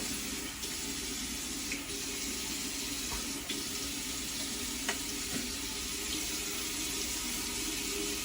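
Bathroom sink tap running steadily while water is splashed onto the face to rinse off after a shave, with a few small splashes and clicks.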